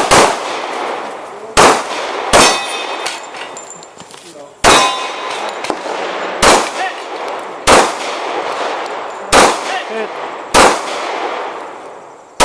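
Handgun shots during a timed USPSA stage: about nine single shots spaced roughly one to two seconds apart, each followed by a ringing tail that fades before the next.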